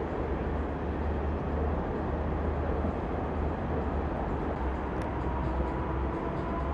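Steady low rumble and hiss of open-air background noise, with a faint thin tone coming in about five seconds in.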